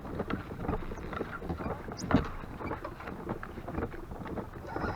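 Scattered knocks and clicks of gear being handled on a plastic kayak, over wind noise on the microphone, while a hooked fish is being fought.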